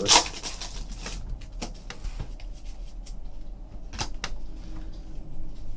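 Foil trading-card pack crinkling as it is torn open, then the cards handled and slid against each other, with a few light clicks and snaps.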